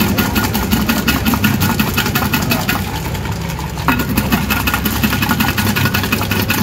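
Ice rattling inside a stainless-steel cocktail-style shaker as a drink is shaken fast by hand: a rapid, even clatter of many small knocks, with a low steady hum beneath.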